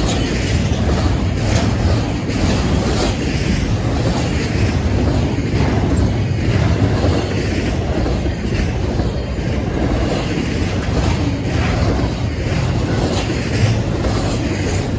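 Steady rumble of a double-stack intermodal train's well cars rolling past close by, steel wheels on rail, with repeated clacks as the wheel trucks pass over the rail joints.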